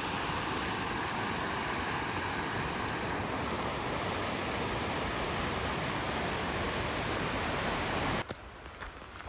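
Steady rush of a waterfall's falling water, cutting off abruptly about eight seconds in to a much quieter background.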